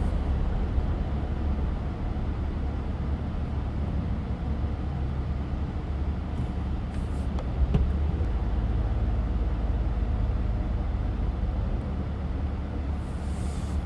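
Steady low engine and road rumble inside a moving SUV's cabin, with tyres on wet, slushy pavement. One light knock about halfway through.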